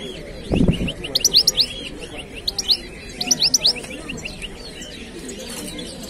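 Caged finches chirping and twittering in quick runs of high, sweeping notes, coming in clusters. A short low thump comes about half a second in.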